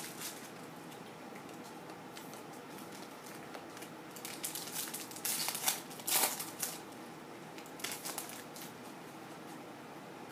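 Foil wrapper of a 2014 Certified football card pack crinkling as it is torn open and the cards are slid out, in short runs of sharp crackles, loudest a little past halfway.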